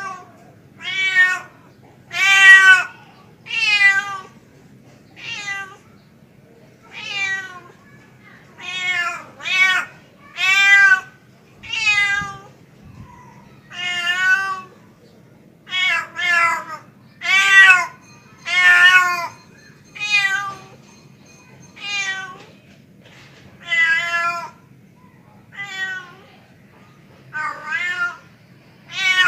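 Tomcat meowing over and over in drawn-out calls, roughly one every second or so, each call rising and then falling in pitch: a male cat's mating call to a female.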